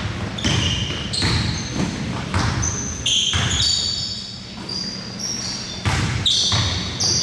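Basketball being dribbled during play, a run of bounces on the court, mixed with short high squeaks of sneakers on the floor.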